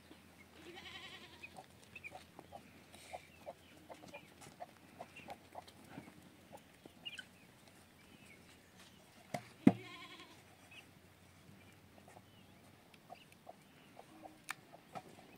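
Goats bleating, two wavering calls about nine seconds apart, amid scattered light clicks and knocks. A sharp knock just before the second bleat is the loudest sound.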